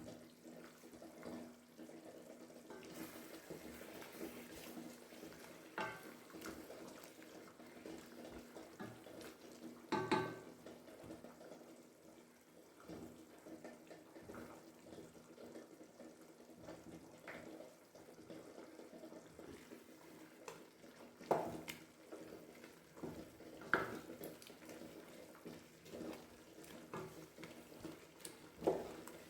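Faint kitchen sounds of water running or being poured, over a steady low hum, with a few sharp clinks of a utensil against a pot or dish.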